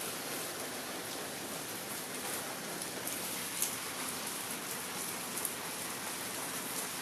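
Rain falling steadily, an even hiss with a few sharper drop ticks.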